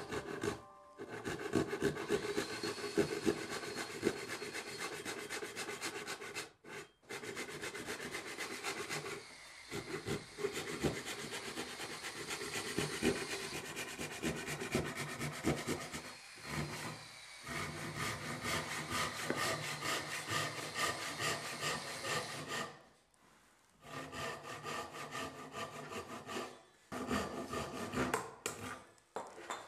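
Hand saw cutting dovetail joinery into the end of a hardwood board, with quick back-and-forth strokes broken by a few short pauses between cuts.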